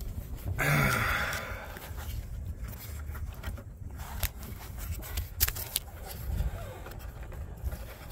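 Hands working plastic hose and electrical connectors in a car's engine bay: rubbing and scraping, with a louder scrape about a second in and scattered small clicks, over a low steady rumble.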